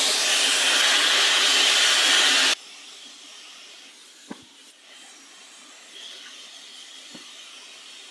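Hot air rework station blowing on a memory chip to melt its solder for removal from a PS4 mainboard: a loud steady hiss of air that drops abruptly to a much quieter hiss about two and a half seconds in, with a couple of faint ticks later.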